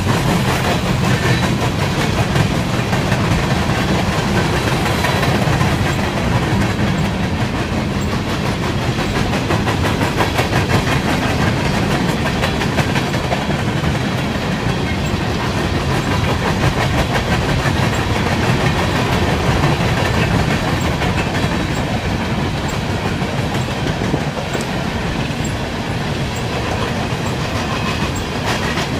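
Empty coal gondola cars of a long freight train rolling past, their wheels clicking steadily and rapidly over the rail joints over a constant rumble.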